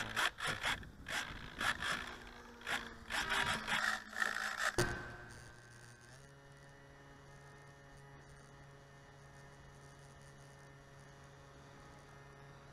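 Jacket fabric rubbing and scraping against a chest-mounted camera's microphone in a run of uneven bursts. About five seconds in, this gives way abruptly to a faint steady hum of several held tones.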